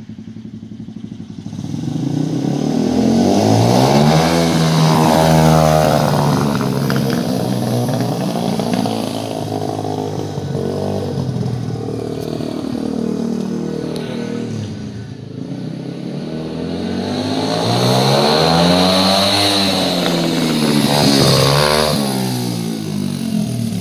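125cc pit bike's single-cylinder four-stroke engine revving as it rides around, its pitch rising and falling with the throttle. It is loudest as the bike comes close twice, about four seconds in and again near the end.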